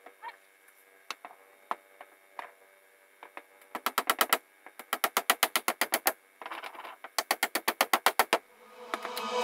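A few scattered clicks, then rapid, even knocking in several bursts of about ten strikes a second from the building work. Music fades in near the end.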